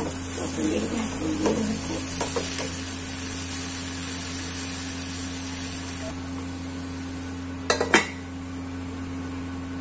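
A perforated steel spoon stirs and scrapes mashed-potato samosa filling in a steel kadhai, with a light sizzle, over the first few seconds. Near the end a steel pot lid clanks a few times in quick succession; this is the loudest sound.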